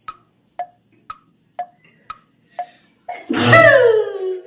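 A light ticking, about two ticks a second, then about three seconds in a loud sneeze with a high voice falling in pitch.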